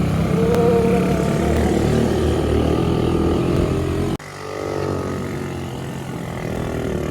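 Motorcycle taxi's engine running steadily while ridden. It breaks off abruptly about four seconds in, then picks up again.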